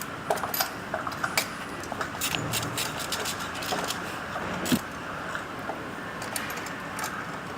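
Metal hand tools clicking and clinking irregularly on the engine as the spark plugs are taken out, with a few sharp metallic ticks ringing briefly.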